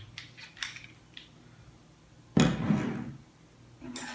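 A few small plastic clicks as a Tabasco bottle's cap is put back on, then a louder knock with handling noise as the bottle is set down on the table about two and a half seconds in, and another sharp click near the end.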